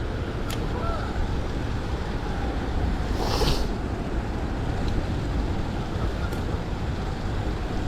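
Steady rush of river current breaking over rocks, with low wind rumble on the microphone; a brief hiss about three seconds in.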